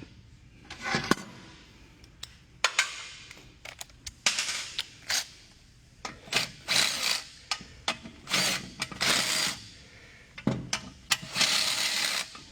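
Hand ratchet working the bolts of a three-piece racing wheel, in a string of short bursts of clicking, with sharp metal clinks between them.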